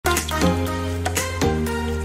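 Background music: a tune with a steady bass line and regular percussive hits.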